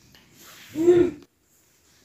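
A man's breath, then one short, drawn-out vocal sound, a hesitation hum between spoken phrases, about a second in.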